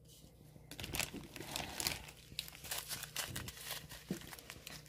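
Small plastic zip-lock bags of diamond painting drills crinkling as they are picked up and handled, a run of irregular crackles starting about a second in.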